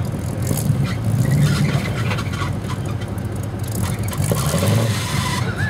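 A 4x4 truck engine running steadily, swelling in loudness twice.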